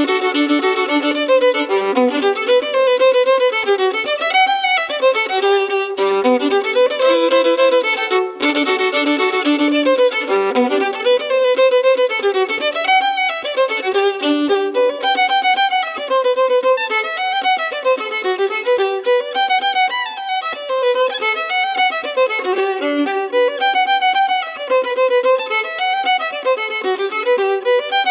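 Fiddle playing a fast folk dance tune, a quick run of notes rising and falling.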